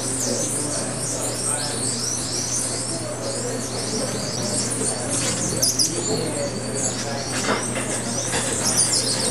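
Many birds calling at once, a dense run of quick high chirps and twitters, over a low steady hum.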